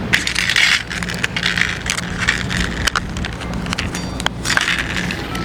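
Repeated short crunches and crackles, typical of stray cats chewing dry cat food, over a steady low rumble of wind on the microphone.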